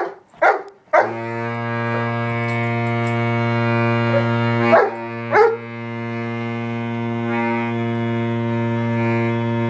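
Baritone saxophone holding one long low note that breaks off briefly about five seconds in and then resumes until near the end. A dog barks at it in fright a few times at the start and twice more around the break.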